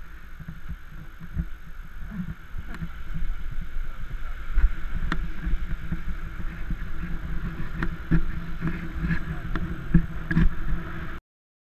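Muffled rumble of wind and road noise picked up by a helmet-mounted GoPro Hero3 while riding a bicycle, growing louder as the bike moves off, with a few sharp clicks and knocks. The sound cuts off suddenly near the end.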